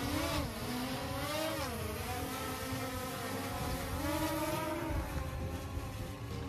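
Small quadcopter drone's propellers whining as it lifts off and climbs, the pitch of the whine rising and falling as the motors adjust, over a low rumble of wind on the microphone.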